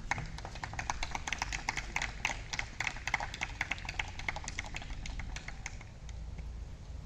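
Scattered hand clapping from a small audience: many irregular sharp claps that thin out and stop about six seconds in.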